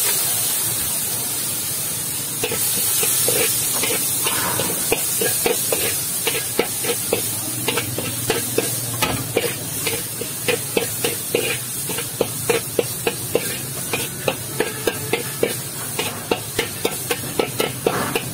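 Stir-frying in a steel wok: a metal spatula scrapes and clanks against the wok about twice a second over a steady frying sizzle. Loud hissing steam rises off the hot wok in the first few seconds.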